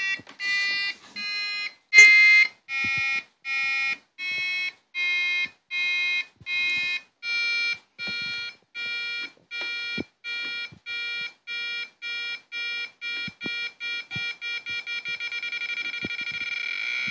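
Piezo element driven by an Arduino Uno beeping out a string of buzzy electronic tones. The first several beeps change pitch from note to note; then one pitch repeats, faster and faster, until the beeps nearly run together near the end.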